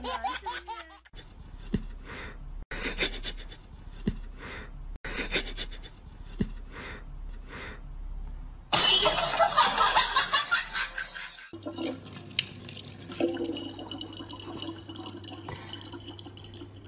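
Short noisy puffs about once a second, then a loud rush of noise lasting a few seconds, then a thin stream of water running steadily from a water-dispenser tap into a plastic water bottle.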